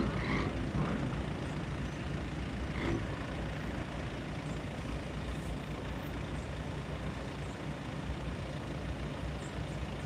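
Cars creeping past at walking pace in slow traffic: a steady low engine rumble, with a few brief sharper sounds in the first three seconds.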